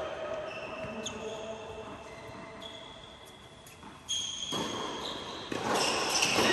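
A tennis ball bouncing on a hard court a few separate times, echoing in a large indoor hall. The noise of the court grows louder near the end.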